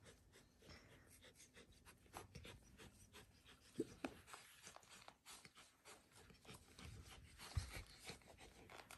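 Near silence with faint rustling and small clicks from the straps and buckles of dog goggles being handled, with a brief click about four seconds in and a soft knock near the end.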